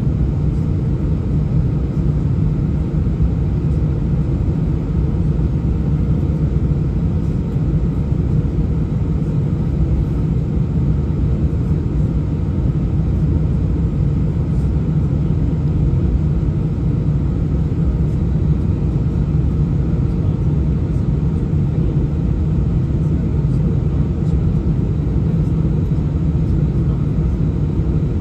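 Steady low rumble in the cabin of an Airbus A319 on the ground, its jet engines running at taxi power.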